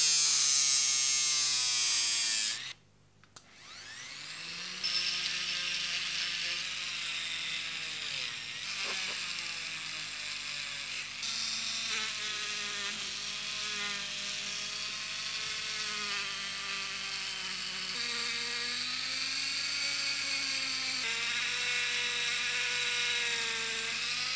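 Handheld rotary tool running at high speed, its motor whine wavering in pitch under load as a sanding drum and then a brass wire brush are pressed against a rusty steel sharpener gear. The whine cuts out about three seconds in and spins back up.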